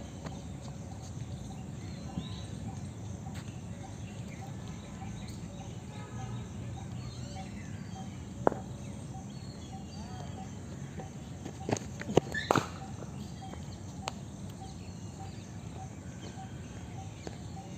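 Cricket ball knocks in a practice net: a few short, sharp cracks of the ball on the bat and the concrete pitch, the loudest a quick cluster about two-thirds of the way through. Birds or insects give a faint, steady chirping underneath.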